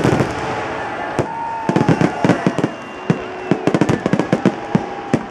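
Aerial fireworks bursting: a run of sharp bangs and crackles, sparse at first, then coming thick and fast in rapid crackling from about halfway through.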